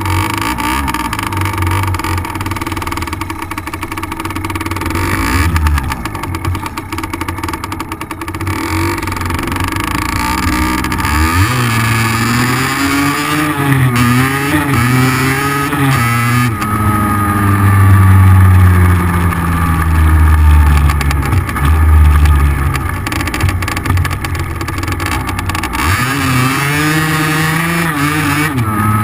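Small 50cc two-stroke dirt-bike engine under way, revving up and easing off again and again, its pitch rising and falling with the throttle and gear changes.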